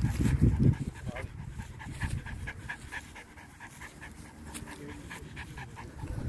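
Dog panting quickly and evenly, about five breaths a second, with a loud low rumble in the first second.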